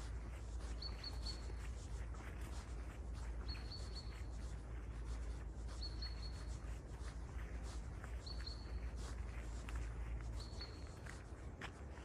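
A bird repeating one short, high note, five times at even intervals of about two and a half seconds, over light scattered raindrop patter and a steady low rumble.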